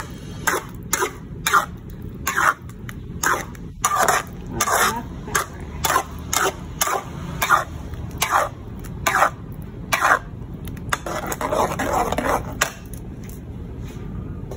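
Metal spoon stirring thick tomato sauce in a stainless steel pan, a short scrape against the pan with each stroke, about two or three a second.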